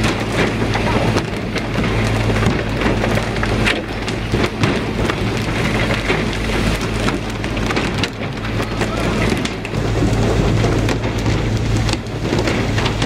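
Water sprayers along a pole-and-line fishing boat's rail give a dense, steady hiss of spray on the sea, like heavy rain. Under it runs a steady low engine hum, with scattered sharp knocks.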